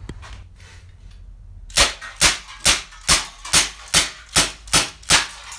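KJ Works MK2 airsoft pistol fired in a quick string of nine shots, about two and a half a second, each a sharp crack.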